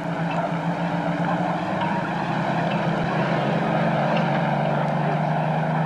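A steady low mechanical drone with a rushing wash of noise over it, the noise swelling slightly in the second half.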